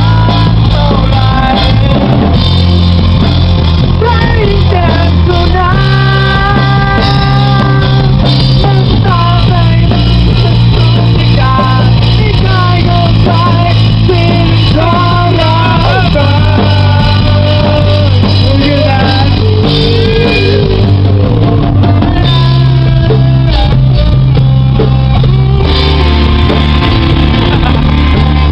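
A rock song: a singing voice over guitar, bass and drums, loud and continuous.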